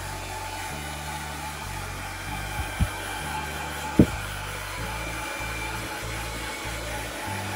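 Handheld hair dryer blowing steadily on a wet dog's coat. Two short dull thumps come about a second apart a few seconds in; the second is the loudest sound.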